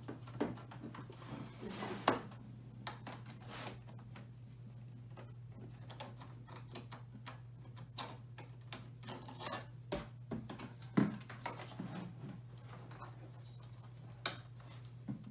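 Scattered small clicks and knocks of plastic cases and cable plugs being handled and pushed into the rear ports of an opened Amiga 500, with two louder knocks about two seconds in and near the middle. A steady low hum runs underneath.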